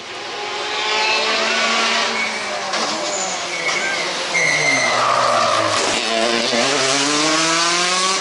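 Rally car engine braking into a corner, its pitch dropping through downshifts, with a brief tyre squeal in the middle. About six seconds in, the engine revs climb again as the car accelerates away.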